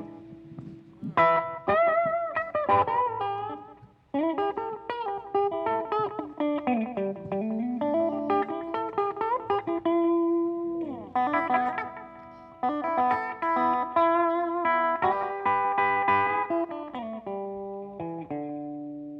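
Blues band playing the instrumental intro of a song, led by a guitar with bent and sliding notes and wavering held notes.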